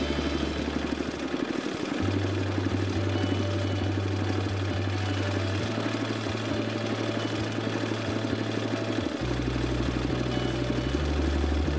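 Engine of an International single-axle snowplow dump truck running steadily as the truck drives away plowing.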